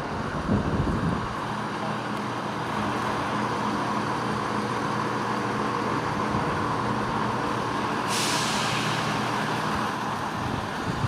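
A train idling steadily with a low drone, and a hiss of air starting about eight seconds in and running on, as from air brakes.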